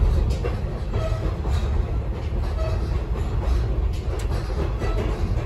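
Ride noise inside a moving former Union Pacific caboose: the steady low rumble of the car rolling on the rails, with scattered clicks and rattles from wheels and car body.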